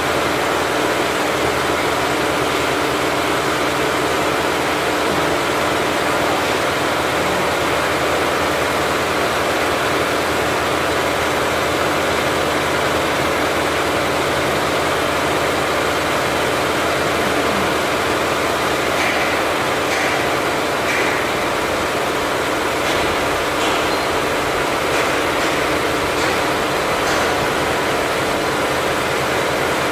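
A Richpeace 20-head flat embroidery machine stitching at 1200 RPM, giving a steady, even mechanical running sound with a constant hum, and a few faint ticks in the second half.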